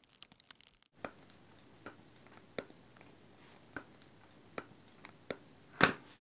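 Small flush cutters snipping excess through-hole leads off the underside of a circuit board: sharp clicks about one a second, with a louder knock near the end. Brief rustling of handling comes first.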